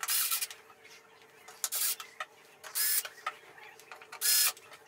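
Screwdriver driving the T-Con board's mounting screws into the TV's metal chassis, in four short bursts about a second apart.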